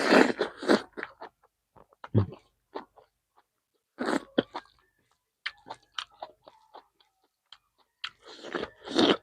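A person chewing and crunching food close to the microphone, a meal of chicken with raw vegetables, in several bouts of bites and crunches with short pauses between them.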